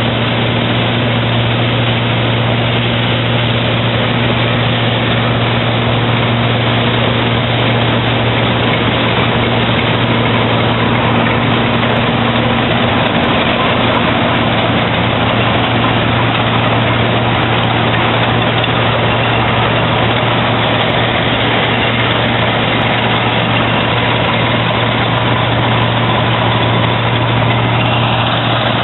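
Claas Dominator 80 combine harvester running: a loud, steady machinery drone with a strong, unchanging low hum.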